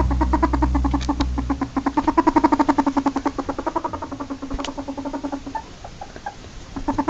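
Ferret dooking: a fast chuckling run of short clucks, about ten a second, over a low hum that stops about a second and a half in. The clucking thins out about five and a half seconds in and picks up again near the end.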